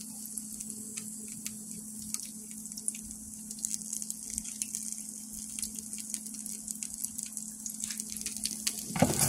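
Cornbread patties frying in hot oil in a skillet: a steady sizzle with many small crackles and pops, over a steady low hum. A brief louder noise comes right at the end.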